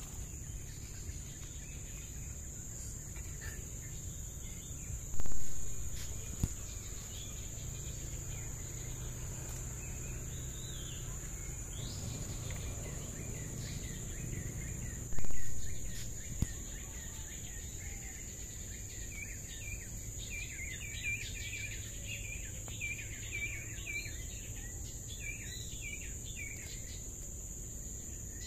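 Steady high-pitched insect drone over outdoor background noise, with a bird chirping rapidly and repeatedly in the last third. Two loud knocks, about ten seconds apart, stand out above it.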